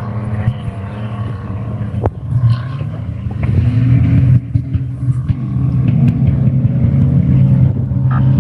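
A motor vehicle engine running steadily, its pitch climbing about three seconds in as it revs up, then holding at the higher speed.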